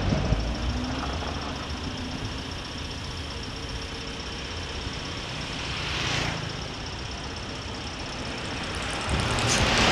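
Moving motorcycle: a steady low engine and road rumble with wind noise on the microphone. A brief rush of noise comes about six seconds in, and a louder one near the end.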